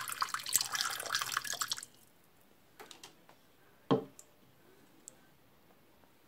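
Water poured from a plastic measuring jug splashing into a shallow reptile water dish, stopping about two seconds in. A few faint clicks follow, then one sharp knock a little after the middle.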